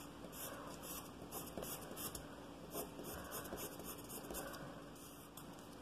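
Faint scratching of a sharpened graphite pencil point on paper, in a run of short, quick hatching strokes, roughly two or three a second.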